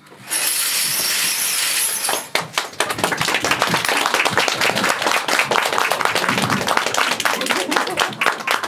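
A steady hiss for about two seconds, then an audience clapping and applauding.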